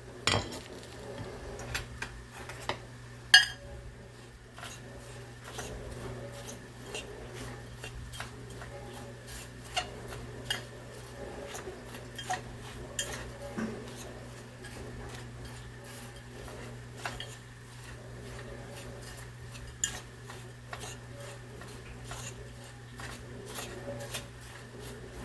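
A utensil stirring chopped onion into a bowl of cracker-crumb and flour breading, with irregular clinks and taps against the bowl over a steady low hum.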